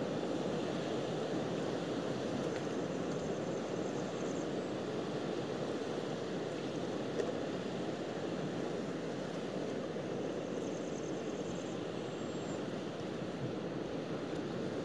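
Steady wash of sea surf on a rocky shore, with some wind.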